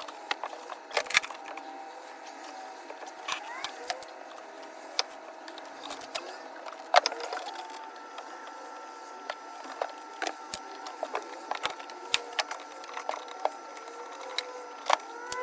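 Irregular clicks, taps and knocks of hand work pulling car interior trim and panels loose, over a faint steady hum.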